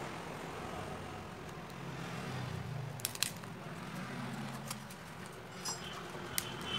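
A few small sharp clicks and snaps from a smartphone's plastic frame and parts being pried apart and handled, over a steady low hum of street traffic.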